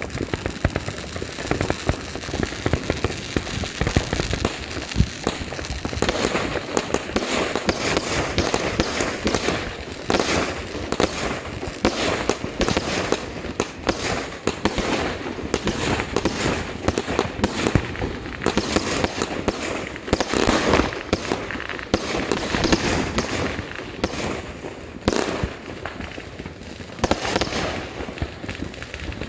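Fireworks and firecrackers going off in a dense, continuous barrage of rapid cracks and pops, with brief slight let-ups between heavier stretches.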